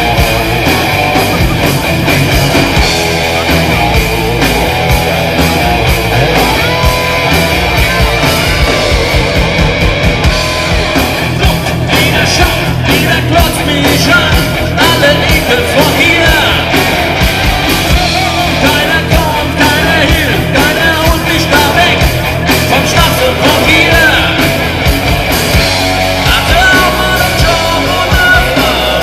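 Loud live rock band playing a heavy-metal-style song, with distorted electric guitars, drums and shouted vocals.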